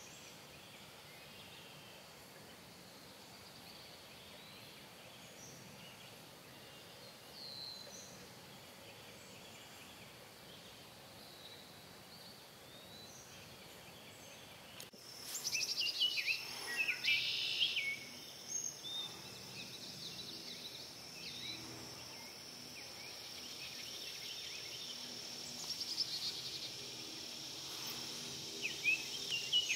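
Summer outdoor ambience of birds chirping and calling over a steady high insect buzz. About halfway through it changes abruptly to a louder mix, with the buzz held steady and several bird calls and trills on top.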